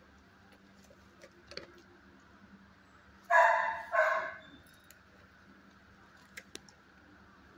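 Two dog barks in quick succession, about three seconds in, over a faint steady hum; a couple of small clicks near the end.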